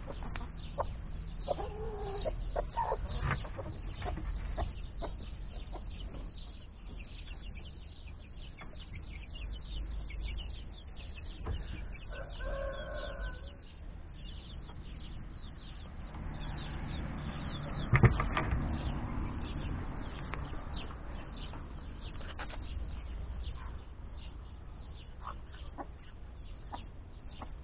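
Chickens clucking, with a few short hen calls, a longer drawn-out call about halfway through, and a single sharp knock a little after that.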